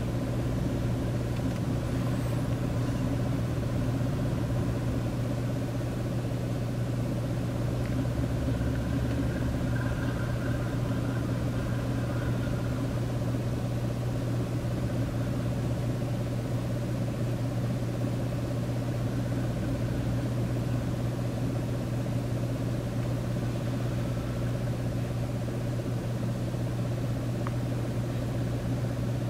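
Diesel freight locomotive's engine running with a steady low drone.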